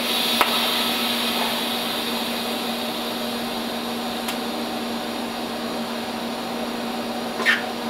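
TIG welding arc hissing and buzzing steadily while a tack weld is run on a metal ring, starting with a sharp click, over a low steady hum from the welding set.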